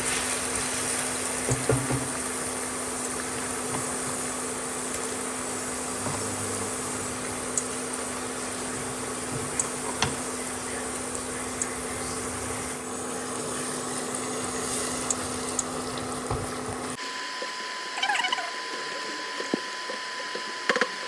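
Chili paste frying in hot oil in a pan: a steady sizzle. About four seconds before the end the sound changes abruptly and the low rumble drops away.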